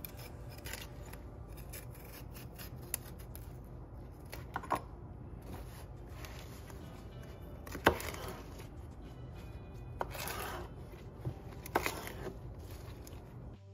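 Kale leaves being chopped: irregular cutting strokes and sharp knocks, the loudest about eight seconds in.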